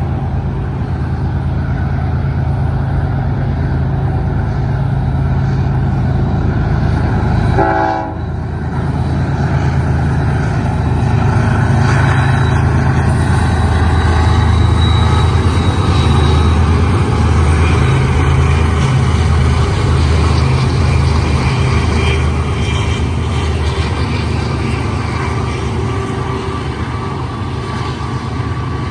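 Several BNSF diesel-electric locomotives working slowly upgrade together, their engines giving a steady, heavy low drone over the rumble of the train, with a brief dip about eight seconds in.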